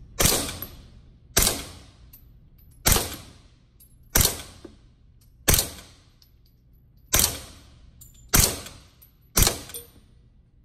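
Suppressed B&T APC9 9mm carbine firing eight single shots, one every second or so, at a slow, uneven pace. Each is a sharp, short report followed by a brief echo off the indoor range.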